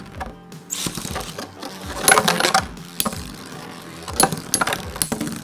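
Lightning L-Drago and Death Quetzalcoatl Metal Fight Beyblades spinning in a clear plastic stadium as the second top is launched in: a burst of rattling clatter about two seconds in, then single sharp metallic clinks as the tops strike each other.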